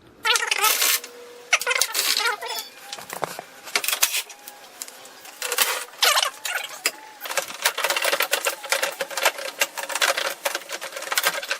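Socket ratchet clicking rapidly in repeated bursts, turning out the 10 mm headlight mounting bolts.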